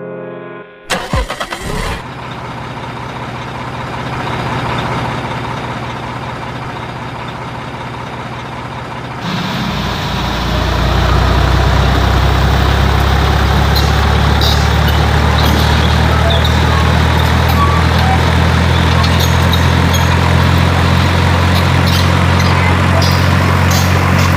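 Engine starting with a short stuttering crank about a second in, then running steadily. From about nine seconds in it settles into a deeper, louder, even idle that holds.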